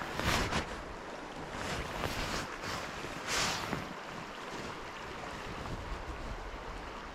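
Legs wading through shallow river water: a few louder swishes in the first four seconds over a steady rush of water, with wind on the microphone.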